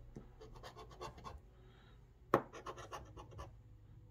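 Small metal scratcher tool scraping the coating off a lottery scratch-off ticket in a series of short strokes, with one sharper click about halfway through.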